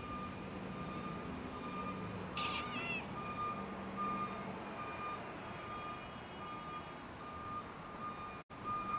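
A vehicle's reversing alarm beeping steadily at one high pitch, about one beep every two-thirds of a second, over a low engine hum. A brief higher warbling sound comes about two and a half seconds in.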